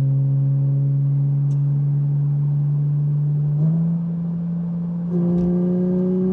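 Porsche 718 Cayman GT4 RS's 4.0-litre flat-six, fitted with an Fi-Exhaust valved muffler and catless downpipe, heard from inside the car cruising at about 70 km/h with a steady, low-revving drone. A few seconds in, the pitch steps up and the sound dips, then it swells again with the pitch slowly climbing as the throttle comes back on.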